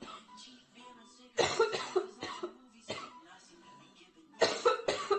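A girl coughing in fits from a severe chest cold. A run of about half a dozen quick coughs comes about one and a half seconds in, a single cough follows, and another burst of coughs comes near the end.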